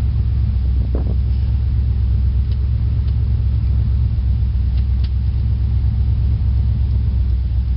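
Chevrolet 350 V8 of a 1973 Malibu SS idling, a steady low rumble.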